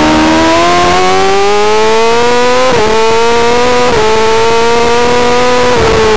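Yamaha R6 inline-four sportbike engine under hard acceleration, heard onboard. The engine note climbs steadily and is broken twice by short gear-change dips, about 2.7 and 4 seconds in. It holds roughly level and then drops near the end as the throttle eases.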